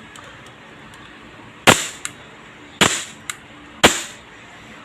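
WE Glock 17 Gen 4 gas blowback airsoft pistol firing three single shots about a second apart, each a sharp crack.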